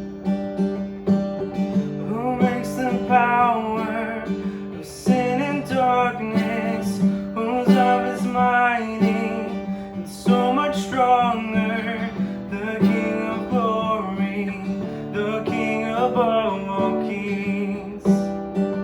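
Worship song: strummed acoustic guitar over a steady held chord, with a sung melody coming in about two seconds in and carrying on in phrases.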